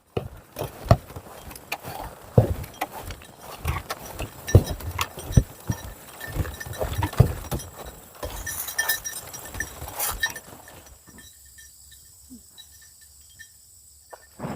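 Irregular footsteps and crunching on a rough forest path. About eleven seconds in the steps die away and only faint high peeps remain.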